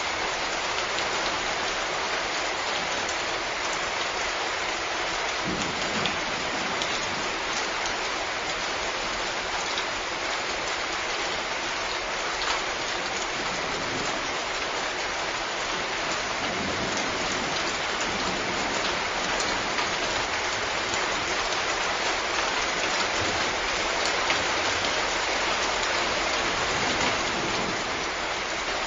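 Steady rain falling: a dense, even hiss of drops on surfaces, with a few slightly louder single drops standing out now and then.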